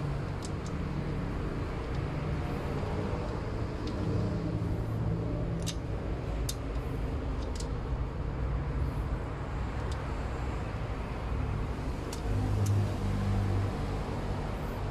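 A few faint, light clicks of small metal valve-gear parts being handled as a hydraulic lifter is fitted back into a rocker arm, over a steady low background rumble.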